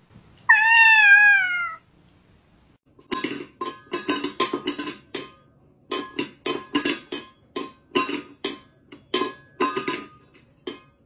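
A domestic cat's single loud meow, falling in pitch over about a second. Then, a few seconds in, a long run of irregular clinks and knocks as a cat paws and bats at a small stainless-steel bowl.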